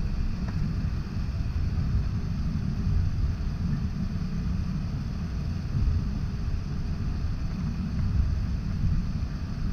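Airliner cabin noise while taxiing: a steady low rumble from the jet engines at low power and the wheels rolling over the taxiway, with a faint tick or two.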